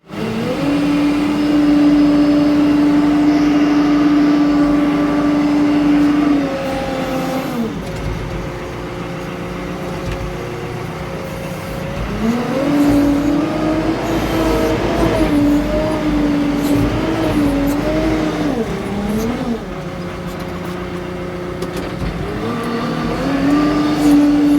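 Escorts backhoe loader's diesel engine revving up and holding at high speed, then dropping back to idle about seven seconds in. It revs up again around twelve seconds with a wavering pitch, falls back near twenty seconds, and revs up once more near the end.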